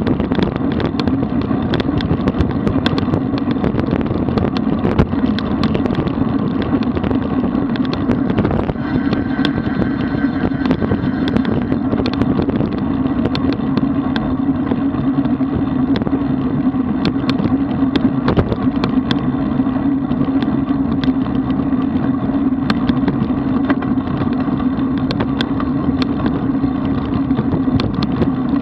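Steady wind rush and road noise picked up by a camera mounted on a road bicycle riding in a group at about 35–45 km/h, with frequent small clicks and rattles from the road surface and the bike.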